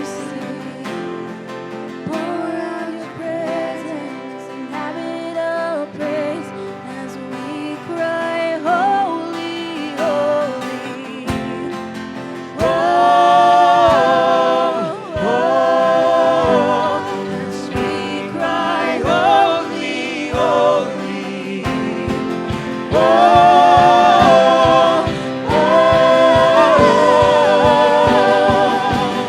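Worship song with voices singing a melody over guitar and band; a steady drum beat comes in about eleven seconds in and the singing grows louder.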